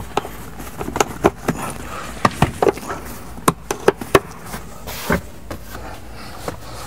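Sharp clicks and knocks at irregular intervals, a dozen or so, as the rear seat backrest and trim panels of a BMW 6 Series coupe are pushed and seated back into place.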